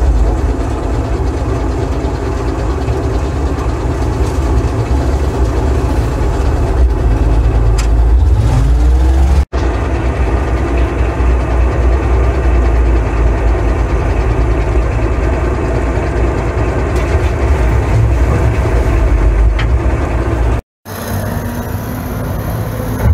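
Dresser 560 wheel loader's big International diesel engine running steadily, heard from the operator's seat, with a rising whine about eight seconds in. The sound breaks off abruptly twice.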